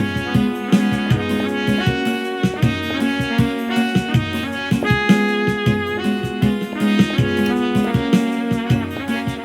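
Instrumental samba gospel music: a brass-sounding lead melody in the trumpet's range over a steady percussion beat and keyboard chords.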